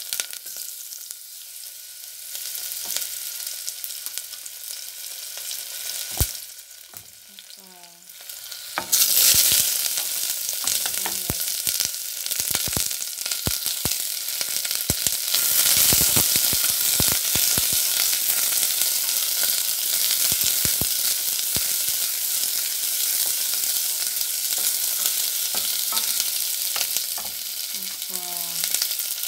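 Garlic sizzling in hot oil in a stainless steel pot. About nine seconds in, sliced onion goes in and the sizzling jumps louder, with short knocks of stirring against the pot.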